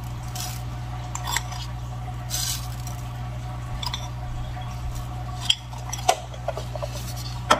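A spoon scraping and clinking against a sugar canister as sugar is scooped out and sprinkled, with a few sharper clicks near the end. A steady low hum runs underneath.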